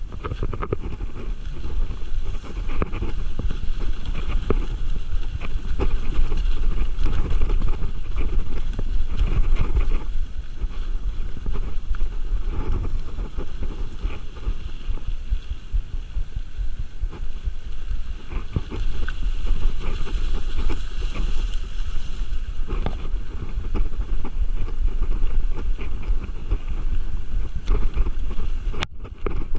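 Mountain bike rolling fast down a dirt trail covered in leaf litter: a steady tyre rumble with constant rattling and knocking from the bike over bumps, and wind on the microphone. The sound cuts out briefly near the end.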